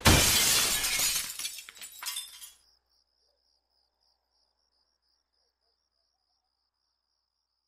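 Glass shattering with a sudden crash whose pieces tinkle away over about two and a half seconds. Faint, steady, pulsing cricket chirps follow.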